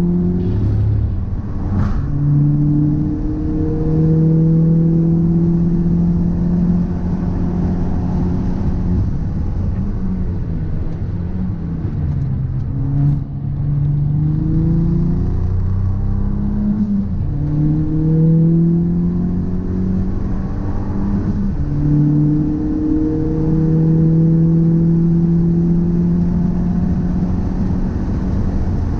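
Car driving, its drivetrain hum steady for stretches and falling and rising in pitch several times as speed changes. The owner wonders whether an abnormal noise in it comes from a driveshaft or a wheel hub bearing.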